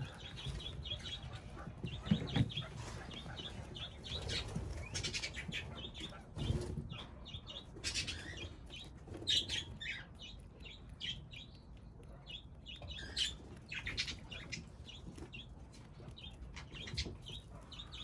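White pigeon pecking mixed birdseed off stone paving: irregular light ticks of the beak striking seed and stone, with a couple of low thumps about two and six seconds in.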